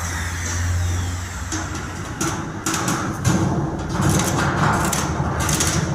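Mechanical exhaust fan running with a steady low hum. About a second and a half in, irregular knocking and rattling starts and goes on.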